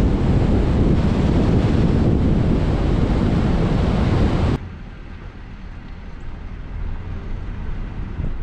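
Loud wind rushing over the microphone of a camera mounted on a moving vehicle's hood, mixed with road and engine noise. About halfway through it drops suddenly to a quieter, steady low rumble.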